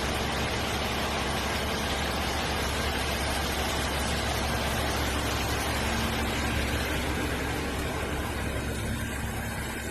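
Manlift truck engine running steadily: a low, even hum with a broad hiss over it.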